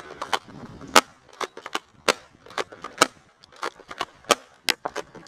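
Airsoft guns firing single shots, sharp cracks coming irregularly at about three or four a second.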